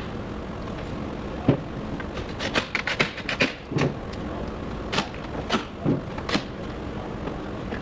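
Scattered clicks and knocks of hand tools and plastic and metal parts being handled in a car's engine bay as components are refitted after a battery change, with a quick run of clicks about halfway through, over a steady workshop hiss.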